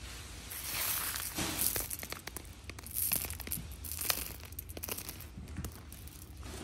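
Polished ruby cabochons clicking against one another as a hand scoops and sifts through a pile of them, with the paper underneath rustling.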